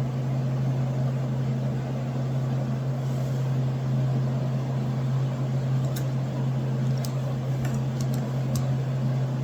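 Steady low mechanical hum, like a fan or appliance running, with a few light clicks in the last few seconds as the multi-tool's parts are moved.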